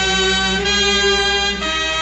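Music: long held notes that change pitch about every second over a steady low hum, with no clear beat.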